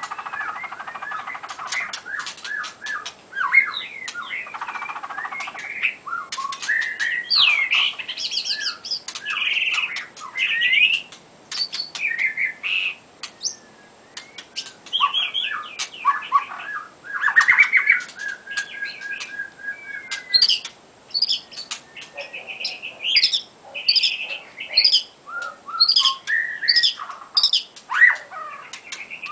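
White-rumped shama singing: a varied, loud run of whistled phrases with rising and falling notes, rapid trills and sharp clicks between them.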